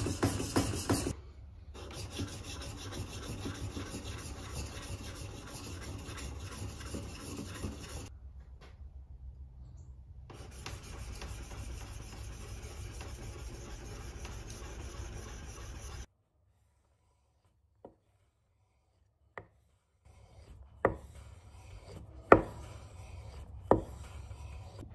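Plane iron scraped back and forth on abrasive paper over a flat plate: a steady rasping rub that stops for a couple of seconds about a third of the way in, then again for a few seconds of near silence. Near the end the iron is worked on a sharpening stone, more quietly, with a few sharp clicks.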